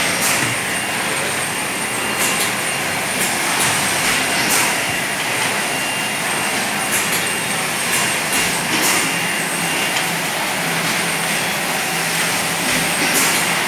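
Mineral water bottling line running: a steady machine noise with a hiss, broken by sharp clicks every second or two.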